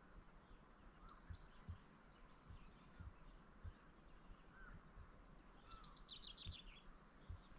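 Faint songbird calls in quiet open-air ambience: a short high chirp about a second in, then a quick run of high twittering notes near the end.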